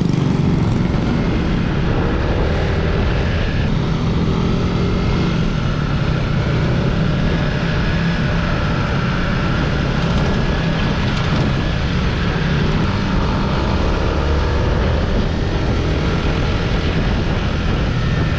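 Yamaha Sniper 150 motorcycle under way at cruising speed. Its engine runs steadily under heavy wind rush on the microphone.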